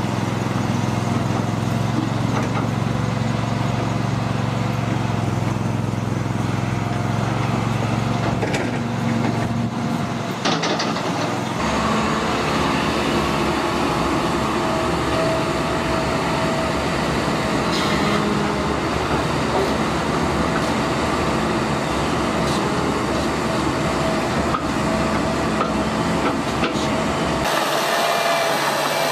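Heavy diesel earthmoving machinery running steadily: excavator and articulated dump truck engines at work. The sound changes abruptly about ten seconds in and again near the end.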